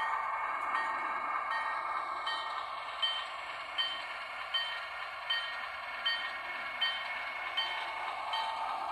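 Bachmann Alco S4 model switcher's locomotive bell ringing at a steady pace, about one ring every 0.8 seconds, over a steady hum from the running locomotive. The rings stand out more clearly from about three seconds in.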